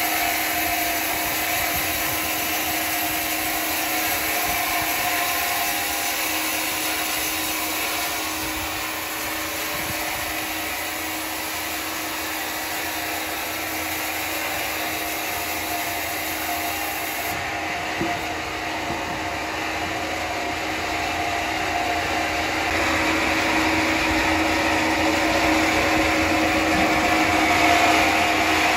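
Horizontal band sawmill running with a steady mechanical whine, growing louder over the last few seconds.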